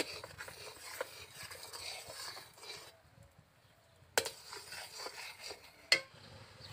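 Metal spatula stirring and scraping inside an iron kadhai of jaggery melting in hot water, then two sharp metal clinks about four and six seconds in, the second the loudest.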